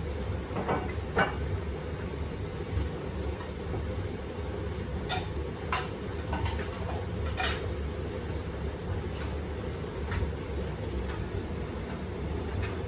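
Beko WTK104121A 10 kg washing machine running its drum during a Quick 30° wash, a steady low motor hum with scattered light clicks as the laundry tumbles.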